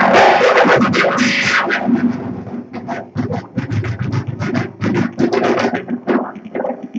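Live electronic music played through the Sonocyb 3D-printed exo-hand controllers: choppy, stuttering synthesized sounds in quick short stabs, dense and loud for the first second and a half, then more broken up.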